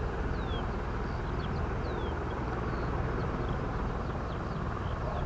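Boeing 787 Dreamliner's two turbofan engines heard from the ground during its display turn: a steady, deep rumbling roar.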